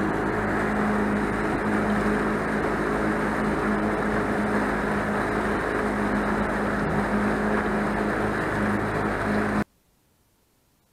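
Motorboat engine running steadily under way, a constant hum with rushing noise, cutting off suddenly near the end.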